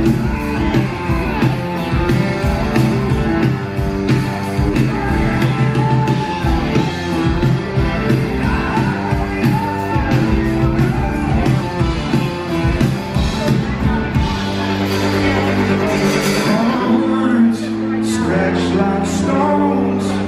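Live rock band playing with drums, guitars and bass. About fourteen seconds in, the drumming thins out under held chords, and a male voice sings near the end.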